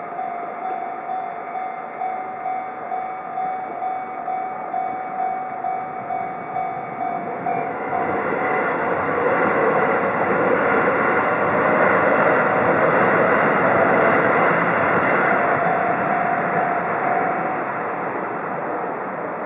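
Japanese railroad crossing warning bell dinging in a steady, pulsing rhythm, then a train passes over the crossing: the noise of the train builds about eight seconds in, is loudest in the middle and fades near the end, with the bell still faintly audible beneath it.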